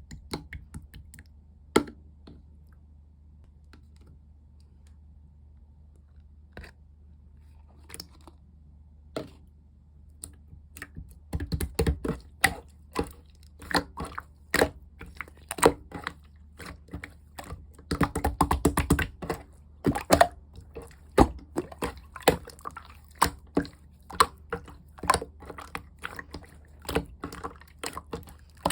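Slime being squished and worked, making sticky clicking sounds: a few scattered clicks at first, then a dense, fast run of clicks from about eleven seconds in.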